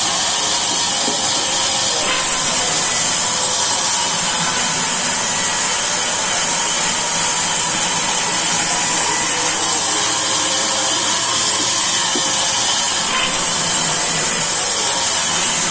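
Sawmill saw running steadily with a constant high-pitched noise.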